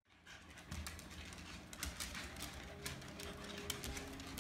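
American Eskimo dogs' claws clicking and tapping irregularly on a hardwood floor as they scamper about in play.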